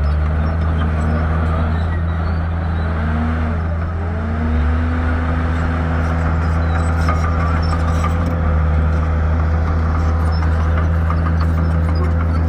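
Shantui bulldozer's diesel engine running, its pitch dipping and coming back up a few times in the first few seconds, then holding steady.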